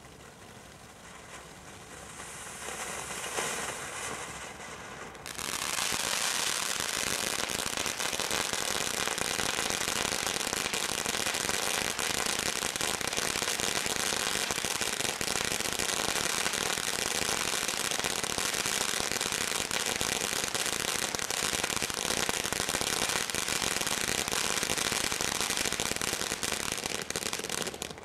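Ground fountain firework spraying sparks. A softer hiss builds for a few seconds, then about five seconds in it jumps to a loud, dense, steady hiss thick with crackling, which cuts off just before the end.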